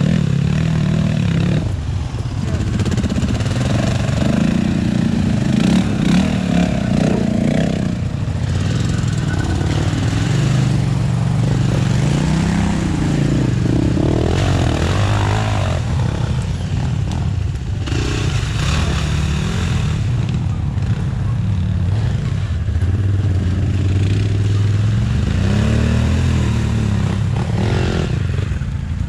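Enduro dirt bike engines running and revving up and down as the bikes ride through a muddy, water-filled forest track.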